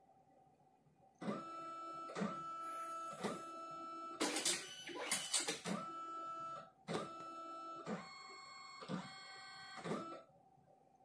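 Lexmark X463 laser multifunction printer warming up during boot: its internal motors run with a steady whine and regular clicks, with a louder rattling stretch in the middle. The running stops briefly about seven seconds in, restarts, and ends about a second before the end.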